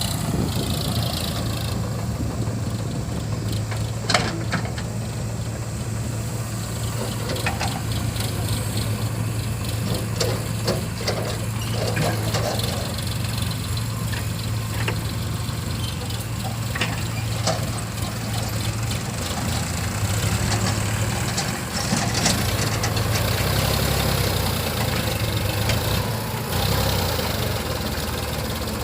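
Diesel engine of a JCB 3DX backhoe loader running steadily as it loads mud, its pitch rising briefly a little over two thirds of the way in, with a few sharp knocks of metal along the way.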